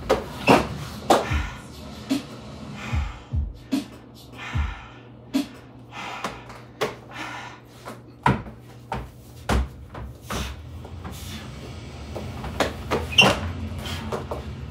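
Hands and feet thudding and slapping on a plywood floor pad during wall walks: irregular knocks about a second or so apart, a few much louder than the rest.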